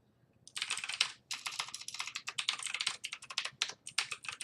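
Rapid typing on a computer keyboard: a fast run of key clicks that starts about half a second in, with one short pause near the one-second mark.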